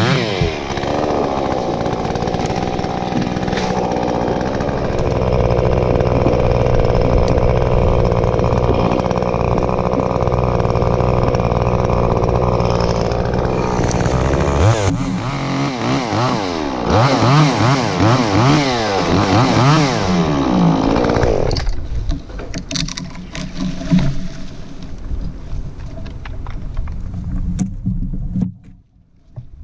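Small top-handle chainsaw running at high speed, steady for about fourteen seconds, then revving up and down repeatedly before it stops about 21 seconds in, leaving quieter rustling.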